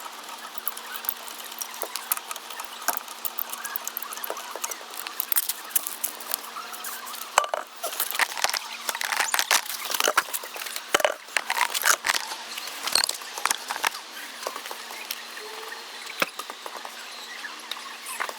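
Hand tools at work on a car's front suspension: rapid, irregular metallic clicks, taps and clinks, busiest in the middle, over a faint steady hum.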